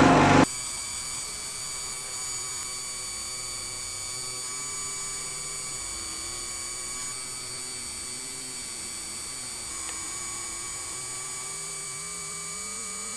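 Electric vacuum pump running with a steady hum and a thin high whine, pulling vacuum on a filter flask during vacuum filtration. It drops abruptly to a quieter level about half a second in.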